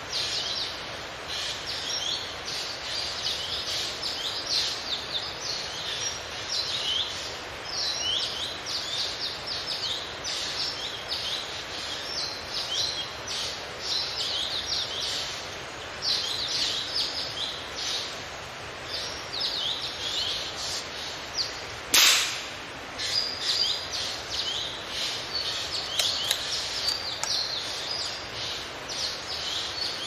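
Many small birds chirping continuously in rapid, high calls, and one sharp shot from a hunting gun fired up into the trees about two-thirds of the way through, the loudest sound, with a faint click a few seconds after.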